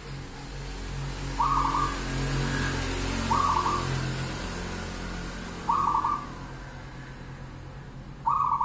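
Local zebra dove (perkutut) cooing: four short rolling coo notes, roughly two seconds apart. Underneath there is a steady low hum and a hiss that swells in the middle.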